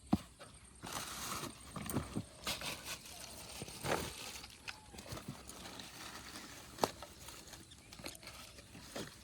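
Hands mixing and squeezing a wet fish-bait mash of stale rice and added ingredients in a container: irregular clicks, knocks and brief rustling, with a sharp knock near the start and another about seven seconds in.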